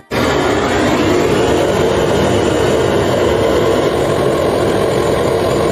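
Handheld gas torch flame burning steadily, an even rushing hiss, as it heats a copper refrigeration pipe joint on a refrigerator compressor for brazing.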